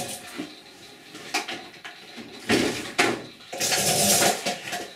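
Handling noise: a few sharp knocks and clatters of objects being moved about, with bursts of rustling. The longest and loudest rustle comes about four seconds in.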